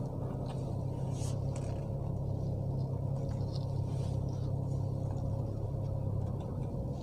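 Maruti Swift Dzire automatic creeping forward in Drive with no throttle, heard from inside the cabin: a steady low engine and road hum with a few faint ticks and clicks.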